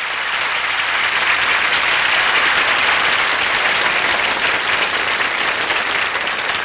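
Studio audience applauding, a dense steady clapping that tapers off near the end.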